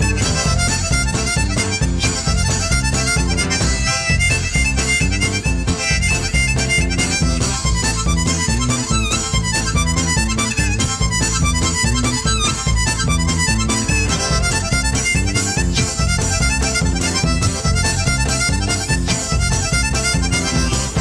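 Instrumental music: harmonica playing a melody over guitar, bass and percussion, with a steady beat.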